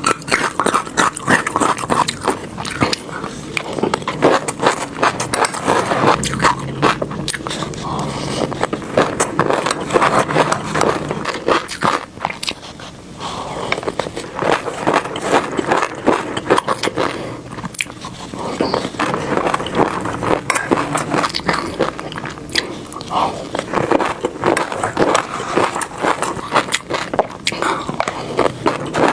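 Mouth chewing orange fish roe, a dense, continuous stream of small crisp pops and crackles as the eggs burst.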